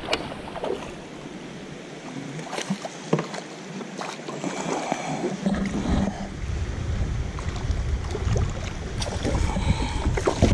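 Water splashing and lapping against a plastic sit-on-top fishing kayak, with a few sharp knocks on the hull. A low rumble of wind on the microphone comes in about halfway through.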